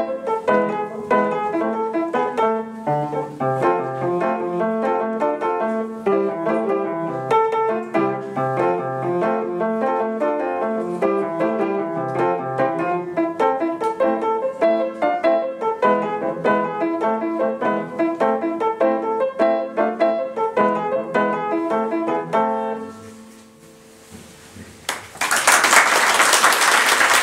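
Solo upright piano played in a steady run of notes, which stops and dies away a little before the end. Audience applause breaks out a couple of seconds later.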